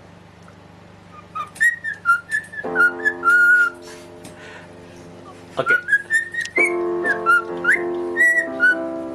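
Cockatiel whistling quick chirpy notes that slide up and down, in two spells, over held keyboard notes.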